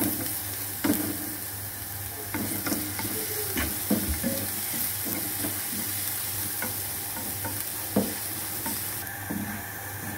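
Chopped garlic and ginger sizzling in oil in a non-stick pan, being sautéed to a light brown, while a spatula stirs it with repeated scrapes and taps against the pan.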